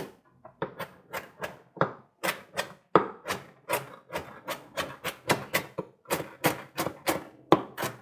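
Kitchen knife chopping fresh dill finely on a cutting board: a steady run of quick blade strikes, about three to four a second, with a short break just after the start.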